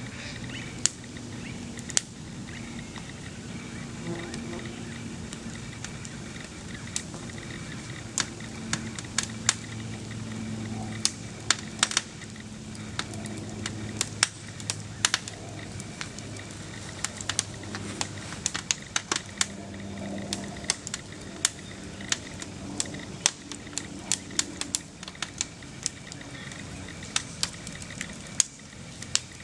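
Burning wooden upright piano: the fire crackles with irregular sharp pops and snaps, over a faint low steady drone.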